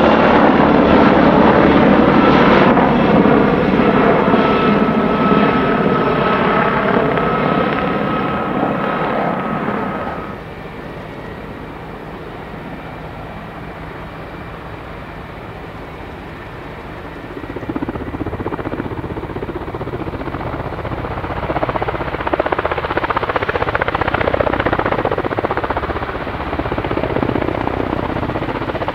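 Mil Mi-28 attack helicopter flying close past, its rotor noise carrying a steady high turbine whine and fading over several seconds, then dropping abruptly about ten seconds in. After that comes a quieter steady running of helicopter turbines on the ground. From about seventeen seconds in, a Kamov Ka-52's coaxial rotors grow louder as it lifts into a low hover.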